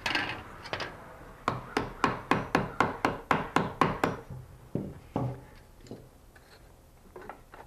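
A hammer tapping a corner of a wooden stretcher-bar frame: a quick run of about ten sharp taps at about four a second, then a couple of single taps. The taps close up a gap at the corner joint.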